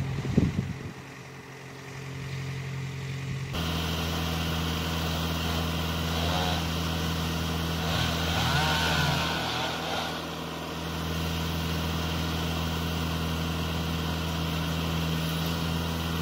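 An engine idling steadily, a low, even hum that gets louder about three and a half seconds in.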